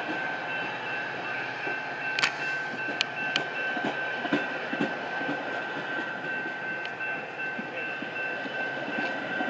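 Metra stainless-steel bilevel passenger cars rolling past on the rails, with a steady high-pitched whine and a few sharp wheel clicks a couple of seconds in.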